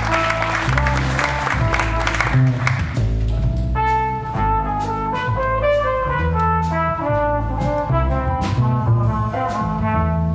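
A jazz quartet plays a ballad: trumpet carrying the melody over grand piano, upright bass and drums. The trumpet line stands out clearly from about three seconds in.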